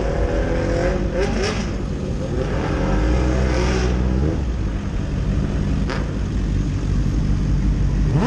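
Several sport motorcycle engines running at low speed, heard close from one of the bikes, with short revs rising and falling in the first second or two.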